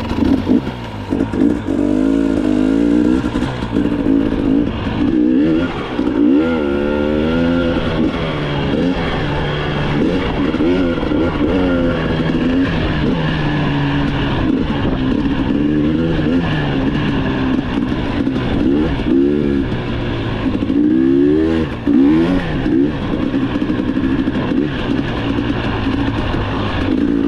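Vehicle engine running, its revs rising and falling again and again.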